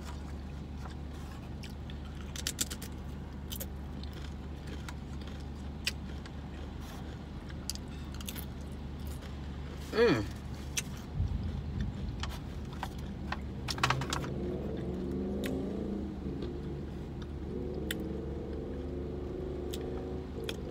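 Thin aluminium foil takeout pan crinkling and clicking as it is handled and food is picked out of it by hand, with light eating sounds, over a steady low hum inside a car. One louder crinkle comes about halfway through.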